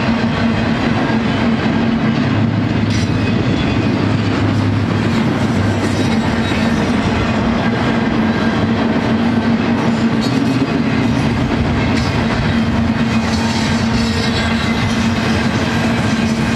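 Double-stack intermodal freight train's container-loaded well cars rolling past: a loud, steady noise of steel wheels on rail, with a low steady tone running under it.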